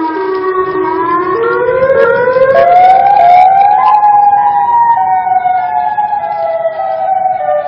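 Wailing, siren-like tones on the soundtrack. Several held tones sound together, climb in pitch over about two seconds starting a second and a half in, then sink slowly in small steps.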